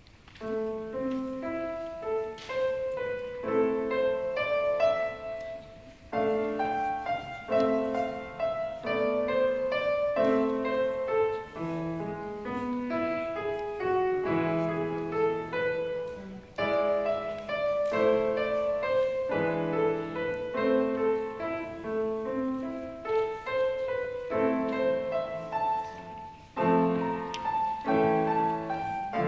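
Solo grand piano playing a melodic étude, note patterns in clear phrases with brief breaks between them. The playing begins right at the start, out of quiet.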